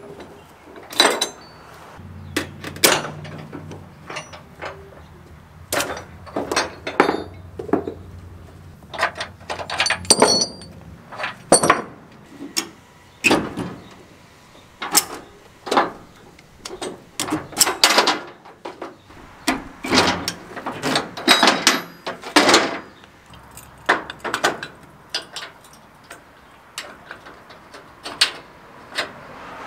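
A long run of sharp metal clanks and clicks from wheel tie-down straps and their hooks being released on a steel car-hauler trailer, and from the trailer's rear stand jack being set. A low hum runs under the clanks from about two seconds in to about ten seconds in.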